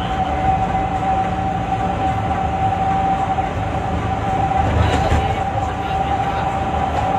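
Bus on the move: a steady low rumble of engine and road with a constant high whine over it.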